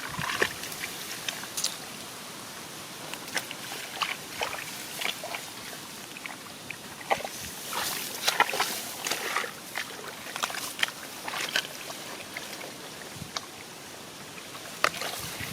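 Shallow paddy water splashing and sloshing in irregular small bursts, as of hands or legs moving through it.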